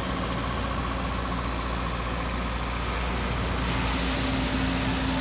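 Engine of a tractor pulling a BeachTech Marina beach-cleaning machine, running at a steady hum, with surf washing behind it.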